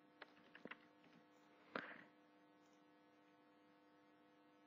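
Near silence: a faint steady electrical hum, with a few faint clicks of a computer mouse and keyboard, the loudest a single click a little under two seconds in.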